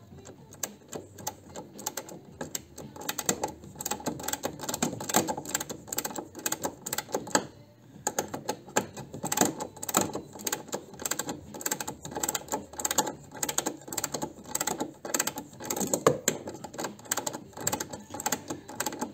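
Ratchet wrench clicking rapidly in short runs while undoing a 13 mm bolt, with a brief pause about eight seconds in.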